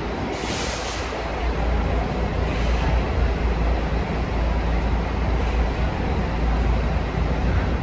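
Double-decker coach's diesel engine running with a steady low rumble as it pulls slowly into its bay. A brief hiss of air from its air brakes about half a second in.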